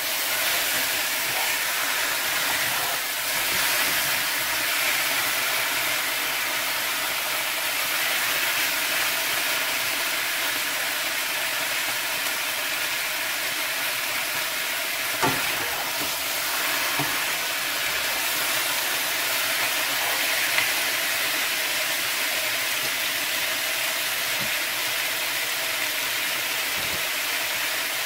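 Raw chicken pieces sizzling as they fry in a nonstick pan with a sautéed spice paste, being stirred and turned with spatulas: a steady hiss, with two sharp knocks of a utensil on the pan about halfway through and again some five seconds later.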